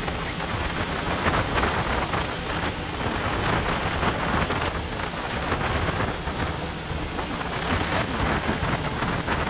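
A speedboat running fast: a steady rush of churning water and spray from the wake, with wind buffeting the microphone.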